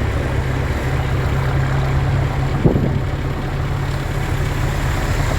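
The driver's large vehicle's engine running with a steady low rumble, heard from inside while driving. A single short, sharp sound cuts in about two and a half seconds in.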